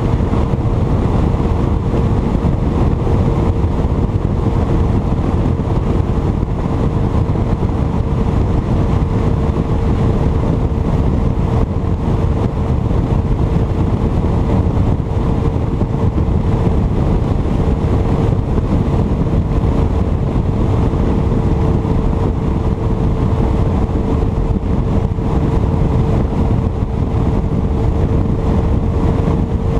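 Bass boat running at steady speed on its 150 hp outboard motor, a constant engine hum under a heavy rush of wind on the microphone.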